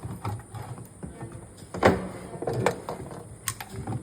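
Scattered knocks and clicks, the loudest about two seconds in, from hands and tools handling parts of a semi-automatic washing machine under repair.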